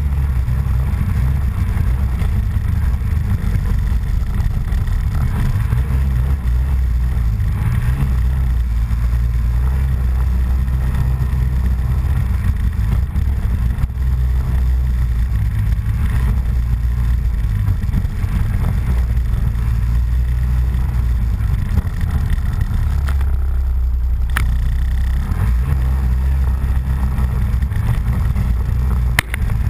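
Small off-road vehicle's engine running steadily as it rides, a continuous low drone. A couple of sharp clicks sound near the end.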